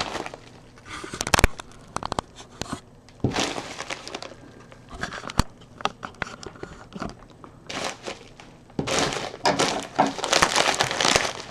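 A mailed package being torn open by hand, its packaging tearing and crinkling in irregular bursts. The bursts grow busier in the last few seconds.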